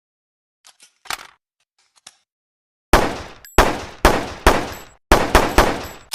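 Handgun gunshot sound effect (the PPM-9): a few light clicks, then about six shots fired in quick succession, roughly half a second apart, each with a short ringing tail.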